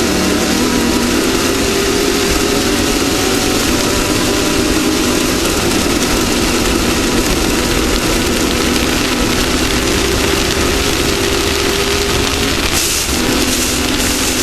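Off-road race vehicle's engine running hard and steady under a heavy wash of wind and rough-terrain noise. Near the end it breaks briefly and comes back at a lower pitch.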